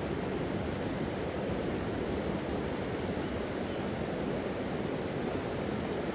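Flowing water making a steady, even rush, with no singing-bowl tone sounding.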